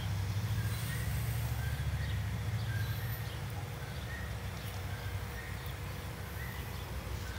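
Outdoor ambience: a steady low rumble with short, faint bird chirps repeating every second or so, and a brief high warble about three seconds in.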